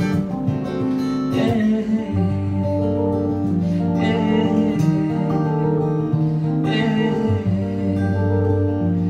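Guitar strummed slowly over sustained keyboard chords, the closing instrumental bars of the song after the last sung line. A few strums land a couple of seconds apart while the held chords change underneath.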